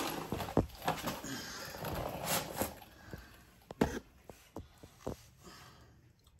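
Hand-handling noise at a small engine's throttle linkage: rustling for the first half, then scattered light clicks and taps that thin out toward the end.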